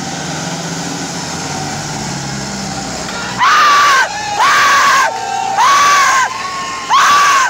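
Kubota MU5501 and John Deere 5310 diesel tractor engines running steadily under load in a tractor tug-of-war. About three and a half seconds in, a much louder horn starts blaring in repeated blasts, each one jumping up in pitch and dropping back between blasts.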